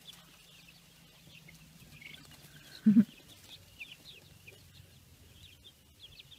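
Young chickens peeping, many short faint high chirps scattered throughout, with one brief louder low-pitched sound about three seconds in.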